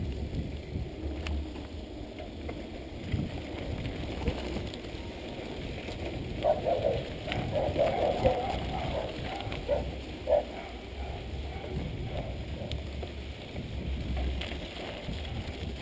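Mountain bike riding over a rough dirt track: steady tyre crunch, rattle of the bike and wind noise, with a few sharp knocks from bumps, the loudest about eight and ten seconds in.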